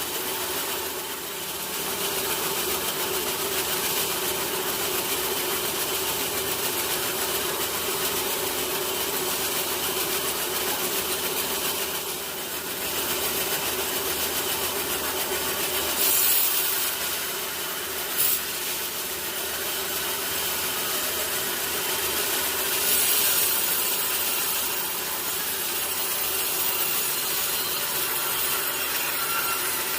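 Sawmill saw cutting lengthwise through a teak log with a steady, continuous sawing noise. It grows briefly louder a few times past the middle.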